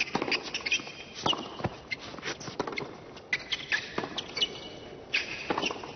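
Tennis rally on a hard court: rackets striking the ball back and forth, with players' shoes squeaking and scuffing on the court between shots.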